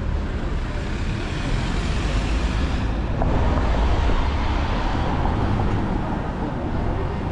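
Street traffic: cars driving past on a city street, a steady rumble of engines and tyres that grows louder for a few seconds as traffic passes close.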